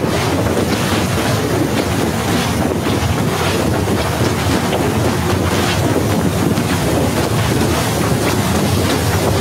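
Snowstorm wind buffeting the phone's microphone: a loud, steady rushing noise.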